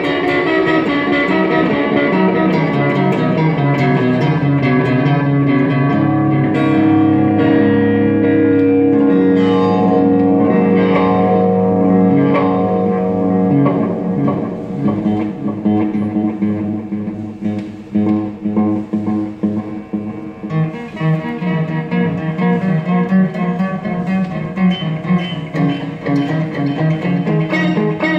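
Electric guitar played through a Korg SDD-3000 digital delay pedal. For about the first half, held notes and chords ring on and overlap; after that the playing turns to shorter, separate picked notes with small gaps between them.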